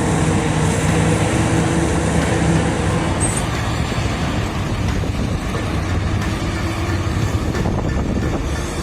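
Heavy machine's diesel engine running, with a steady hum that fades after about three seconds into a dense mechanical rumble.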